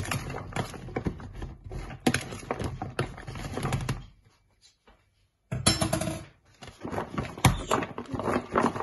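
Zucchini slices being mixed with oil and seasoning in a plastic food container: a fork and the slices clicking and knocking against the plastic, with a brief break a little past four seconds in.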